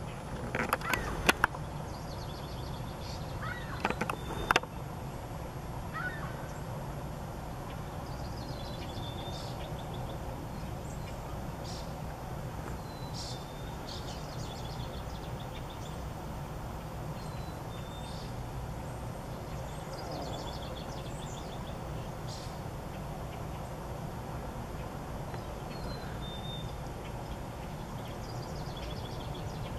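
Outdoor ambience: short, high bird chirps every few seconds over a steady low rumble, with a few sharp clicks in the first five seconds.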